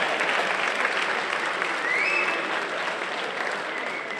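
Arena crowd applauding, with a short rising whistle about halfway through, the applause dying down near the end.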